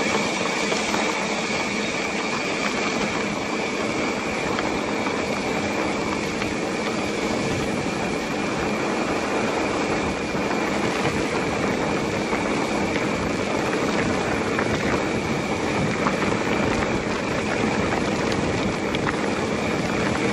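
Mountain bike rolling over a rough dirt and gravel track: steady tyre noise and rattling from the bike, picked up through a handlebar-mounted camera.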